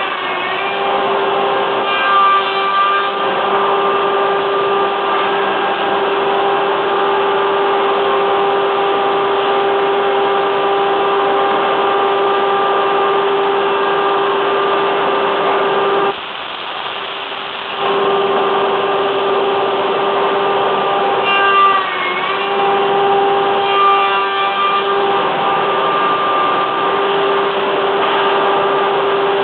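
Woodworking machinery running: a steady motor hum with one held tone, which drops away for about two seconds in the middle and comes back. A few short knocks from the machine's moving parts come near the start and twice later on.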